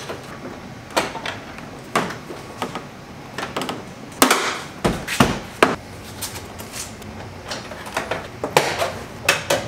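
An interior door panel being fitted to a BMW E36 door: irregular sharp clicks and knocks as the panel is handled and pressed on and its plastic clips push into the door. The loudest cluster of knocks comes a little past four seconds in.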